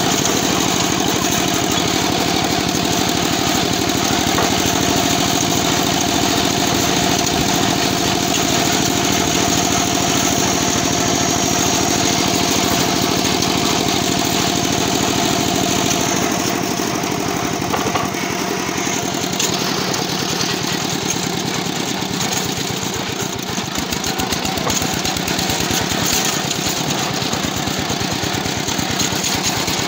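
Single-cylinder diesel engine of a two-wheel walking tractor running under way, a fast, even beat of firing pulses. It eases off and runs slightly quieter about halfway through.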